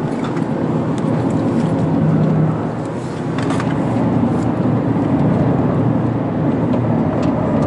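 Toyota GR Yaris's turbocharged 1.6-litre three-cylinder engine heard from inside the cabin, running hard on track, easing off briefly about three seconds in and then pulling again.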